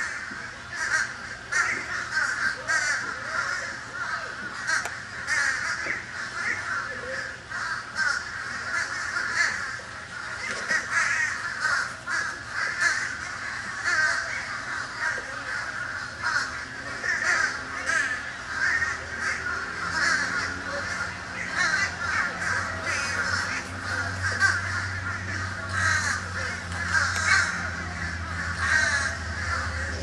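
Crows cawing over and over, many calls overlapping. A low steady hum comes in about two-thirds of the way through.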